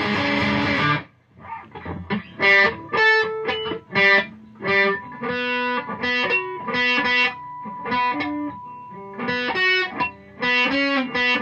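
Electric guitar through a distorted amp: heavy strummed chords that stop about a second in, followed by a run of separate picked single notes, each ringing briefly.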